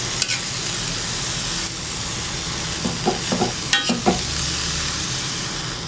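Noodles sizzling in a wok in sauce and shrimp-soaking water while a metal spatula stirs them, scraping against the pan a few times over a steady hiss.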